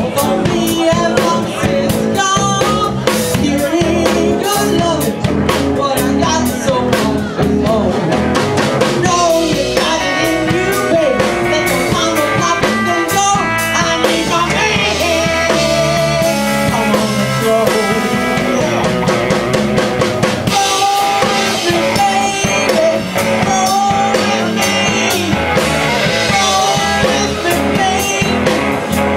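Live band playing a blues-rock song: a woman singing lead over electric guitar, electric bass and a drum kit keeping a steady beat.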